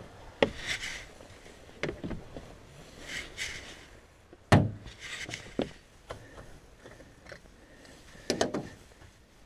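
Hands working at the bonnet of a Massey Ferguson 7495 tractor to open the engine coolant filler cap. A few sharp clicks and knocks are heard, the loudest about halfway through and a quick double near the end, with short rustling scrapes in between; the engine is not running.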